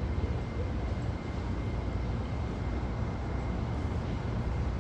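Steady low rumble of outdoor street background noise, with no distinct event standing out.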